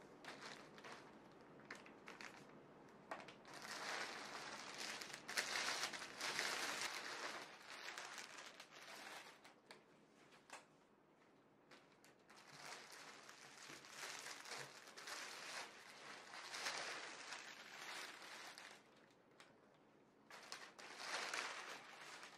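Clear plastic packaging bags crinkling in irregular spells as cushion covers are pulled out and handled, with the soft rustle of the fabric. The crinkling is loudest a few seconds in and again near the end.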